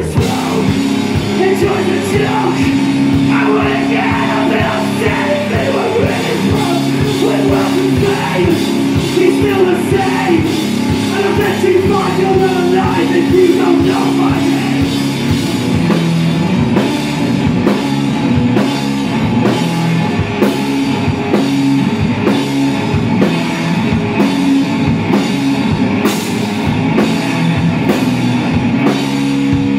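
Live rock band playing: a man's singing over electric guitar and a drum kit. The singing drops out about halfway, and the guitar and drums play on with steady, heavy drum hits.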